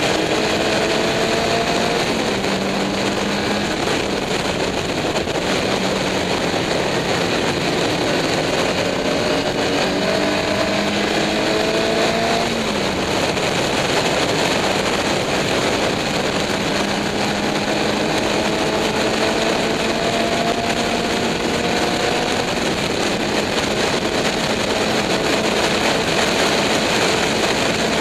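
Racing car at full speed heard from a bonnet-mounted onboard camera: heavy wind noise over the microphone with the engine note underneath, its pitch rising slowly and dropping once about halfway through at a gear change.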